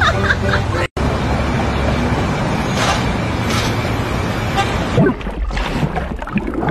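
City traffic sound effect with car horns tooting, the soundtrack of an interactive floor projection of a busy road, after a brief cut-out near the start. About five seconds in it gives way to water sounds as the projection changes to the sea.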